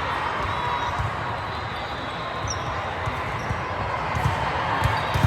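Volleyballs being hit and bouncing in a gym: scattered low thumps over a steady hum of crowd chatter, with a few sharper hits near the end.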